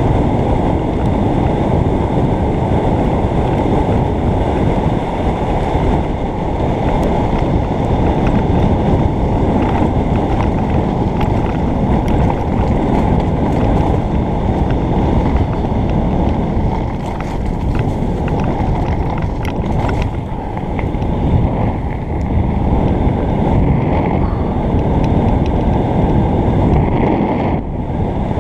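Wind rushing over a helmet-mounted camera's microphone during a fast mountain-bike descent, with the tyres rumbling over a dirt trail and short rattling clicks from the bike. Loud and steady throughout.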